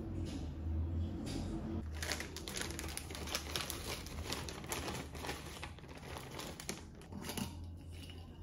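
A plastic bag of frozen blueberries crinkling as it is handled, a dense crackle that starts about two seconds in and dies away near the end.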